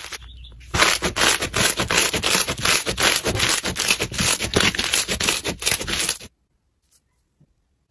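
Crunchy slime being squeezed and pressed by hand, giving a dense run of rapid crackling and scratchy pops that cuts off suddenly near the end.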